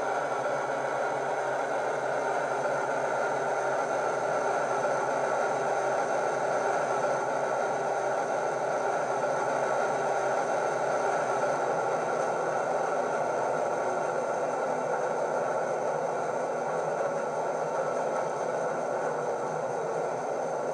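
Model Class 58 diesel locomotive's DCC sound decoder (ESU LokSound 5 with Howes sound) playing the diesel engine sound through a small ESU passive-radiator speaker: a steady engine note with no deep bass, as the loco draws to a stand and idles.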